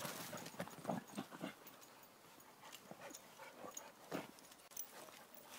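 Several dogs moving about on a woodland dirt path, their paws and a walker's footsteps making quiet, scattered scuffs and patter, busiest in the first second and a half and again about four seconds in.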